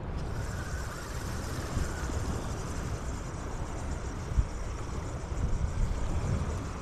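Wind buffeting the microphone in a steady low rumble over the wash of shallow surf water, with one brief low thump near the middle.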